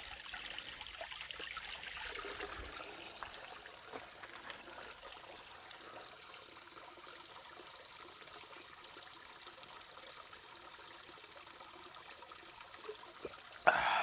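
Spring water trickling and dribbling over rocks in a mountain stream, louder for the first two or three seconds and then a steady, fainter trickle. A brief, louder sound comes right at the end.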